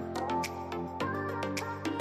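Background music: a pitched melody over a steady beat.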